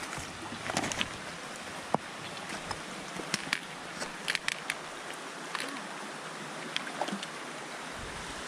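Shallow river running over stones, a steady rushing, with scattered sharp clicks and taps of trekking-pole tips and footsteps on the stepping stones.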